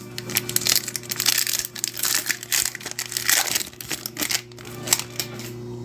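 Crinkly trading-card pack wrappers being crumpled and torn open by hand, a busy run of crackles and quick snaps.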